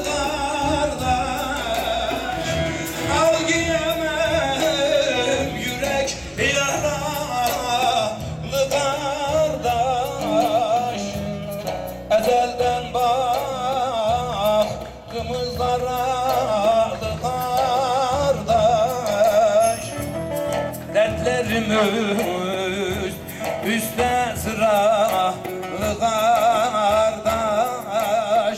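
Male singer performing a Turkish folk song into a microphone, the voice amplified through the hall's speakers. He holds long, ornamented, wavering notes over instrumental backing from a bağlama (saz).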